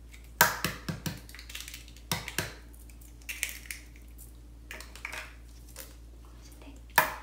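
Eggs being cracked on a mixing bowl and their shells broken open: a series of sharp cracks and clicks, the loudest about half a second in and again near the end.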